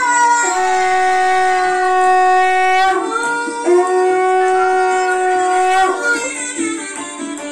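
Conch shell (shankha) blown in two long, steady blasts, the second starting after a short break a little before halfway through. It is the conch of a Hindu blessing ritual.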